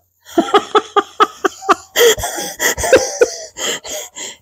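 A goat calling back: a quick stuttering run of about seven short pulses, then longer wheezy, rasping sounds.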